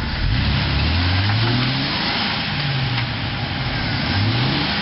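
Jeep Wrangler TJ engine revving under load as the Jeep crawls through deep mud, its pitch climbing sharply in the first second or so and rising again twice more.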